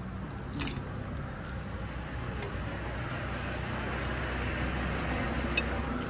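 Steady street traffic noise: a low, even rumble of passing vehicles, with a few faint clicks.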